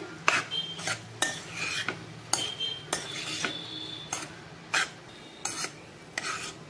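Spatula stirring moist flattened rice in a kadhai: irregular scrapes and clinks against the pan, several with a brief ring.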